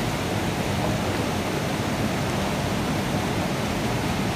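Rushing whitewater of a fast rocky stream, a steady even rush with no change in level.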